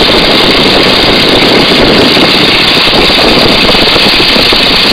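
Boeing-Stearman N2S-3 biplane in flight: its seven-cylinder Continental R-670 radial engine and propeller running steadily at cruise power, mixed with heavy wind rush over a camera mounted out on the wing struts.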